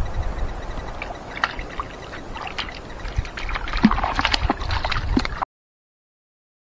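Dog splashing and sloshing about in a shallow mountain creek, irregular bursts of water sound that grow busier about four seconds in, over wind rumble on the microphone. The sound cuts off suddenly about five and a half seconds in.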